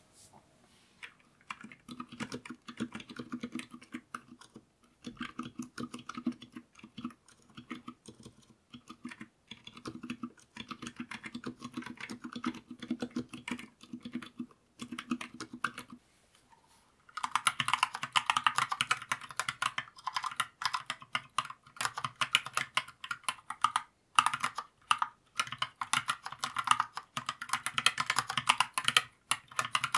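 Typing on a 3D-printed 36-key split mechanical keyboard, a fast run of keystroke clacks. About 17 seconds in the typing gets louder and brighter, on lubed Holy Panda X tactile switches.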